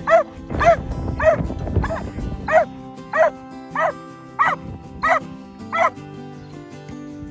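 A Belgian Malinois barking, about ten short high barks evenly spaced a little over half a second apart, stopping about six seconds in. Background music plays throughout.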